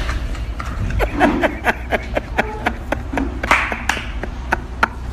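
Quick, even hand claps keeping a beat, about four a second, starting about a second in, with a few brief voices among them.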